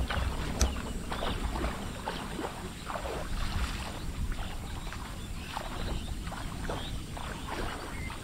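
Irregular splashing and sloshing of feet and legs wading through shallow paddy-field water, over a steady low rumble.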